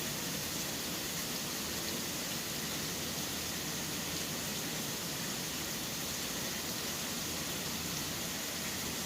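Steady rain falling as an even, unbroken hiss.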